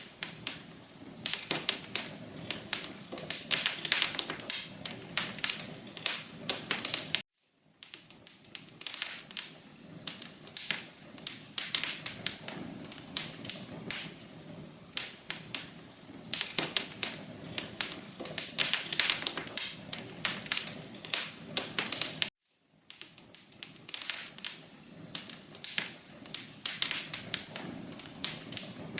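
Wood fire crackling: dense, irregular pops and snaps over a soft hiss. The sound cuts out to silence for a moment twice, about a quarter of the way in and again about three quarters in.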